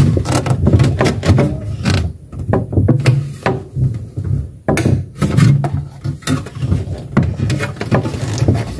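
Refrigerator drawers and shelves being pulled out and handled: a quick run of knocks, clunks and sliding scrapes.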